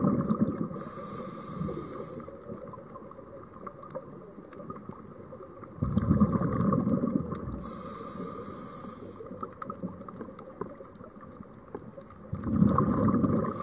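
Scuba diver breathing through a regulator, heard underwater: a rush of exhaled bubbles at the start, another about six seconds in and a third near the end. After each of the first two comes the hiss of an inhalation through the regulator, in a slow steady breathing rhythm.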